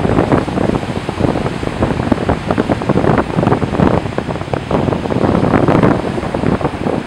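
Small North Sea waves breaking and washing up a sand beach, a steady rush of surf with wind buffeting the microphone.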